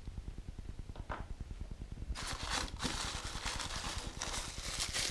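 Plastic packaging crinkling and rustling as small model parts are unwrapped, starting about two seconds in, over a rapid, even low pulsing.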